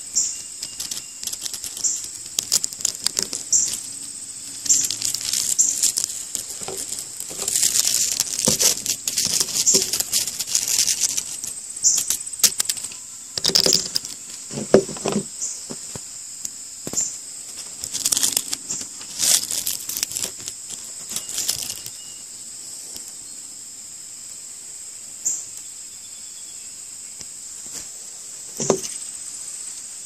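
Knife blade cutting into a dead cicada's hard shell on a wooden board: irregular bursts of crunching, crackling clicks with a few duller knocks, one near the end. Behind it runs a steady high-pitched drone of insects singing.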